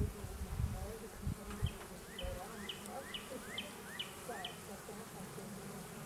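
Honeybee colony humming steadily from the open hive and the frame of bees held above it. A few low thumps come in the first two seconds, and about seven short rising chirps come roughly two a second through the middle.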